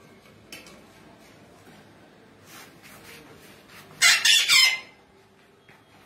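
Blue-and-gold macaw giving one loud, harsh squawk about four seconds in, in three quick pulses, with a few fainter squawks earlier.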